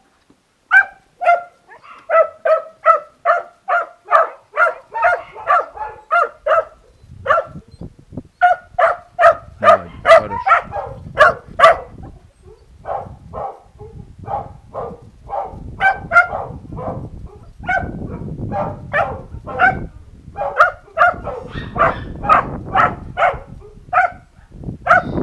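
Puppies barking over and over, high yappy barks coming about two or three a second in long runs, with short breaks between runs.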